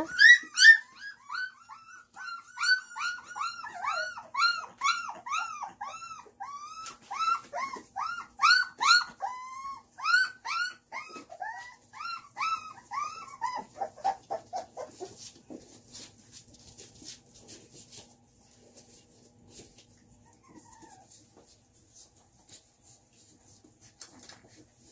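Young puppies whimpering: a rapid string of high, arching cries, a few each second, that dies away about fourteen seconds in, leaving only faint clicks.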